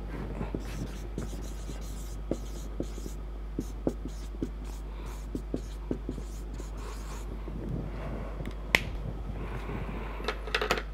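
Marker pen writing on a whiteboard: scattered light taps and scratches of the tip, with one sharper click about nine seconds in, over a steady low hum.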